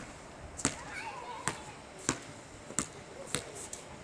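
A basketball being dribbled on an asphalt court: six sharp bounces, about one every two-thirds of a second.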